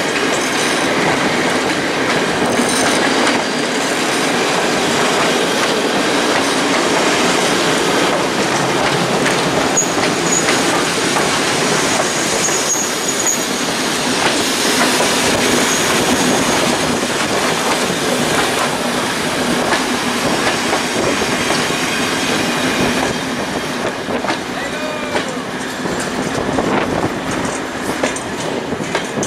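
Passenger coaches of a heritage train rolling past over the track: steady wheel-on-rail noise with clicks as the wheels cross the rail joints, and a faint high wheel squeal about ten seconds in. The noise eases a little near the end as the last coaches go by.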